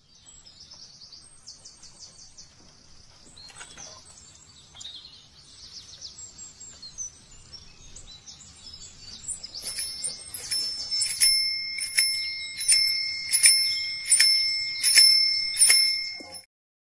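Birds chirping faintly, then from about ten seconds in a bell ringing in a steady rhythm, about two strikes a second, for some six seconds before it stops.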